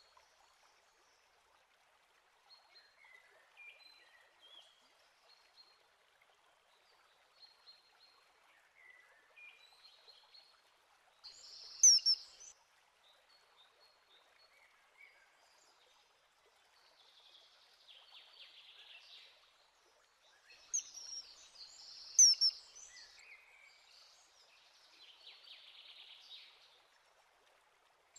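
Common kingfisher giving short, shrill, very high calls, loud about twelve seconds in and again about ten seconds later, over faint chirps from other birds and a soft hiss.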